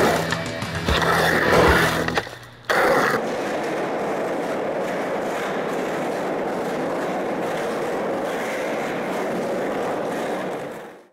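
Music stops about two seconds in. After that, skateboard wheels roll steadily over concrete until the sound fades out at the end.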